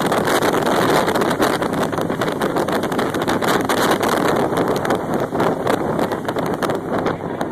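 Steady noise of a jet boat under way at speed, with wind buffeting the phone's microphone.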